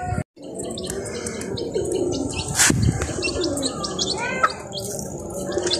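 Birds chirping and calling in many short, quick high notes, with lower wavering calls underneath.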